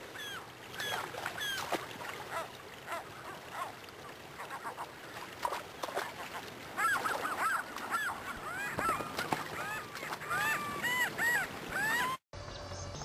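Gulls calling over rushing river water: many short, arched, repeated calls, overlapping more thickly from about halfway through. The sound cuts off abruptly shortly before the end.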